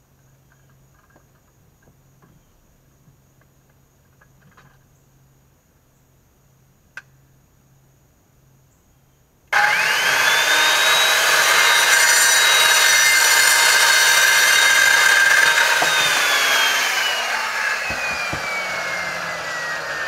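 Quiet handling clicks for the first half, then a handheld circular saw switched on about halfway through: its motor spins up quickly to a steady whine and the blade cuts through PVC pipe. Near the end the cutting noise stops and the motor winds down slowly in a falling whine.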